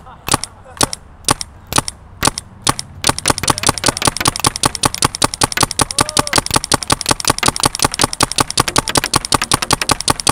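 Planet Eclipse Emek 100 mechanical paintball gun firing. It shoots single shots about two a second at first, then about three seconds in it breaks into a rapid string of about seven or eight shots a second.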